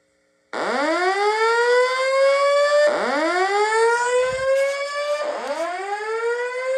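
Fire alarm voice evacuation speaker sounding its whoop alert tone, which alternates with the spoken evacuation message. The tone sweeps upward and starts over about every two and a half seconds, beginning about half a second in.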